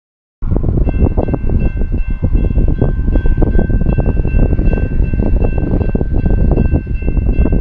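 Heavy wind buffeting the microphone: a loud, uneven, gusting rumble that starts abruptly about half a second in. Over it sits a faint, steady chord of several high tones.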